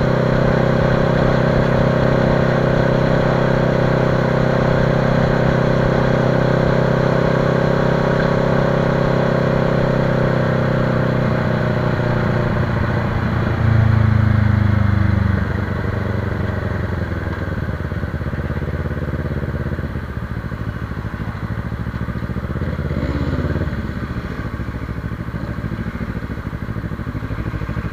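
Motorcycle engine heard from the rider's own bike: a steady cruising drone for about twelve seconds, then the pitch drops as it slows, with a brief louder patch, and lower, shifting engine note near the end.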